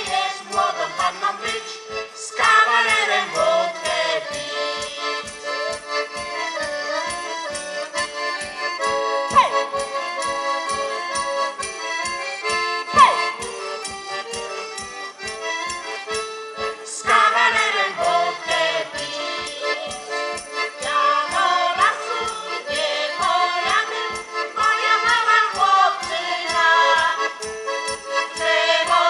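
Polish folk band playing a lively tune led by a piano accordion over a steady drum beat, with a tambourine. Women's voices sing in stretches, including near the end.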